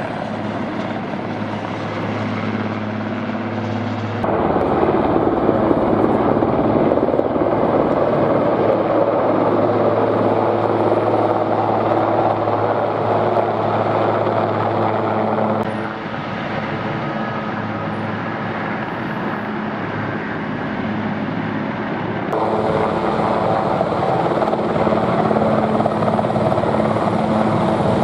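Armée de l'air Super Puma twin-turbine helicopter hovering and manoeuvring low and close: steady rotor beat with turbine whine. It gets louder about four seconds in, drops back about halfway through, and swells again a few seconds before the end.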